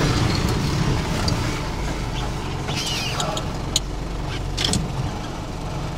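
Vehicle driving over a rough, rocky dirt track, heard from inside the cabin: a steady engine and road rumble with scattered rattles and knocks from the bumpy ground. The sharpest knock comes a little before four seconds in.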